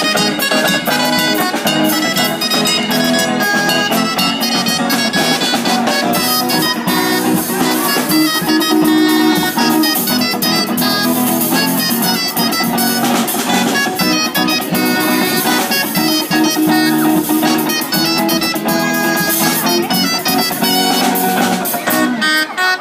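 A charanga street band playing music live, with guitar and drums over a steady beat.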